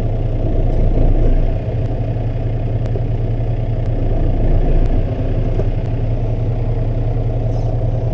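Tractor engine running steadily at idle, heard from inside the cab, swelling slightly about a second in and again around the middle.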